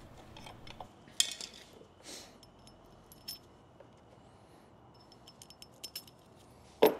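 Sparse light metallic clinks and ticks of hand tools and engine parts being handled, with one sharper click about a second in and a run of small ticks near the end.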